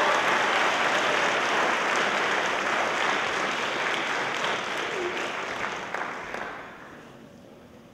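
Audience applauding, the applause dying away about six to seven seconds in.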